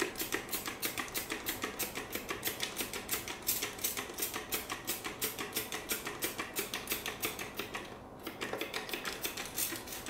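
Spray bottle squeezed over and over in quick succession, about four sprays a second, each a short hiss of mist. The spraying breaks off about eight seconds in, then starts again.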